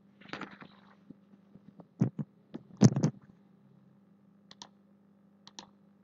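Computer mouse and keyboard clicks. A short rustle comes just after the start, then a few sharp clicks about two to three seconds in, the loudest near three seconds, then lighter paired clicks later on, over a faint steady hum.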